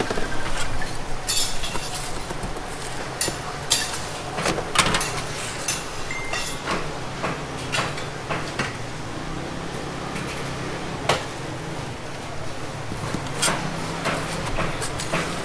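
Metal tongs clicking and knocking against a grill rack and a wooden cutting board while a large fried scallion pancake is lifted, folded and prodded, with irregular sharp clacks over a low steady hum.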